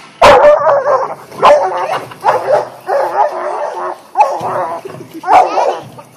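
Dog barking excitedly in a rapid string of short, loud, high-pitched barks and yelps.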